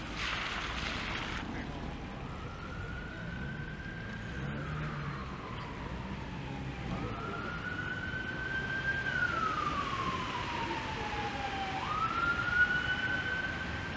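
Emergency-vehicle siren wailing, its pitch rising and falling slowly a few times, over a steady hiss of rain and traffic on a wet street. A brief hiss near the start.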